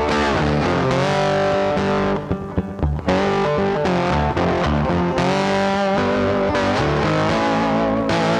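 Background music led by a guitar playing held, wavering melody notes, dipping briefly a little after two seconds in.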